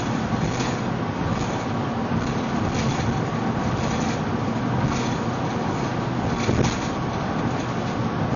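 Steady road and engine noise of a car driving at highway speed, heard from inside the cabin, with a few faint, irregularly spaced thumps.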